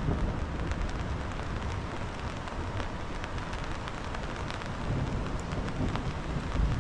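Steady rushing noise of rain and water running over river rapids, with scattered drop ticks and a low rumble swelling near the end.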